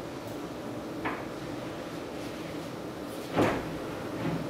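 Light handling noises from a hand on the plastic housing of a petrol earth auger that is not running: a small click about a second in and a louder short knock near the end, over a faint steady low hum.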